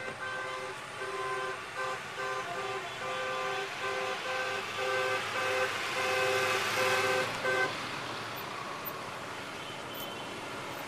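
A car horn sounding a long run of short toots, stopping about three-quarters of the way through, over the steady noise of cars driving past.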